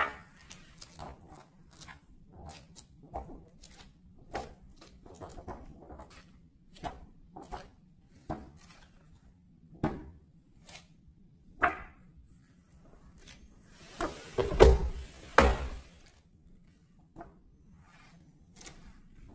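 Pages of a large illustrated book being turned by hand: a series of short paper flaps and slaps, with a louder rustling flurry of pages and a couple of thumps about two-thirds of the way through.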